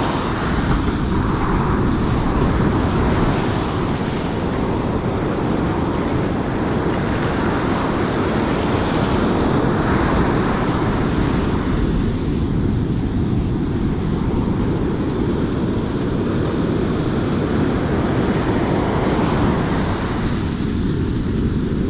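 Wind buffeting the microphone over the steady rush of surf, with a few faint high clicks in the first several seconds.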